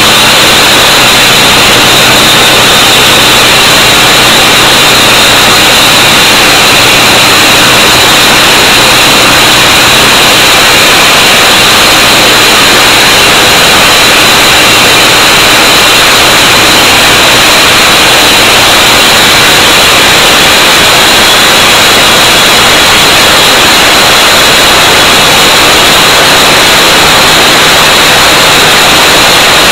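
Honda-powered walk-behind concrete saw running steadily, its engine and spinning blade making a loud, harsh noise with a steady low engine tone under it. The recording is overloaded and distorted.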